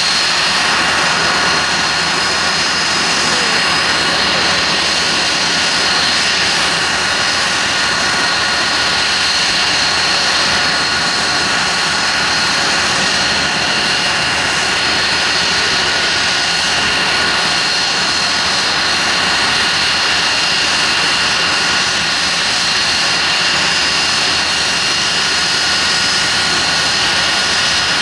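Hawker Siddeley Nimrod MR2's four Rolls-Royce Spey turbofans running at low taxi power: a loud, steady jet whine with several high ringing tones over the rush of the exhausts.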